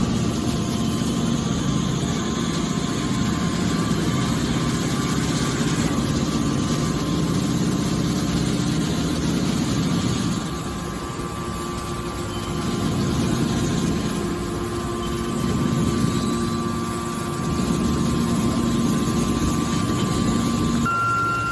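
Hydraulic metal baler running as it compresses tin cans: a steady motor and pump drone with a faint steady whine, easing off briefly about ten seconds in before picking up again.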